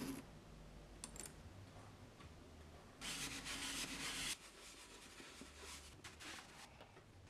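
Handling noise from a coated-canvas handbag: a light click at the start and another about a second in, then a louder rasping rustle lasting just over a second about three seconds in, followed by faint rubbing and small ticks.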